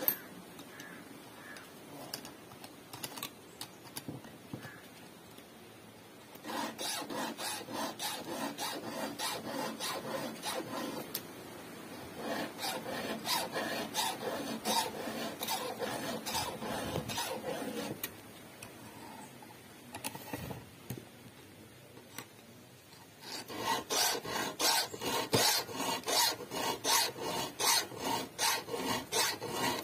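Round file rasping across the cutters of a chainsaw chain in quick, repeated strokes: the chain teeth being hand-sharpened. The strokes come in several runs of a few seconds each, with short pauses between them.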